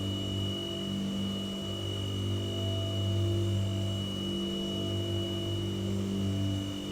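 White noise sound machine running steadily: a low hum with a thin high whine above it, over an even soft hiss.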